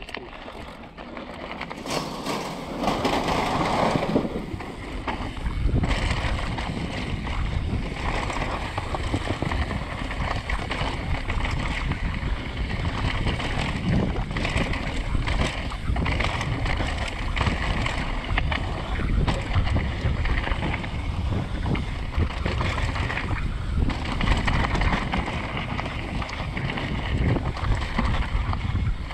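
Onboard sound of a mountain bike descending a trail: wind buffeting the microphone over tyres rumbling on gravel, dirt and roots, with the bike rattling and knocking over bumps throughout. It starts quieter and builds within the first couple of seconds as the bike picks up speed.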